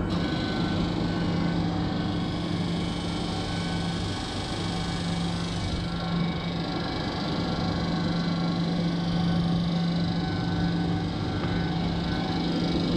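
Air-cooled screw chiller running: a steady mechanical hum with a low drone and a dense hiss of compressor and condenser fans.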